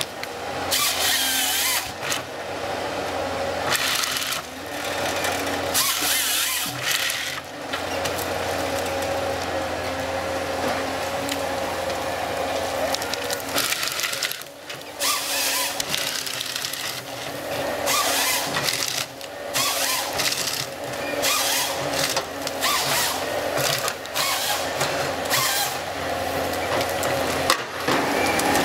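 Ponsse forestry harvester working: the engine and hydraulics run steadily while the harvester head feeds a stem through its rollers and delimbing knives, with repeated short bursts of the chain saw cutting and branches cracking off.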